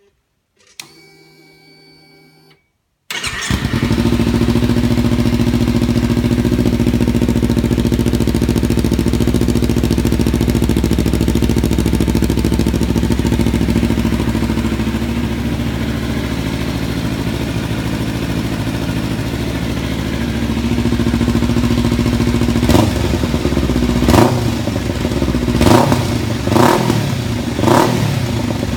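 Kawasaki Ninja 300 parallel-twin engine, fitted with an eBay slip-on exhaust with Yoshimura branding. After a faint whir for a couple of seconds, the engine starts about three seconds in and idles steadily. Near the end it is revved in about five short throttle blips.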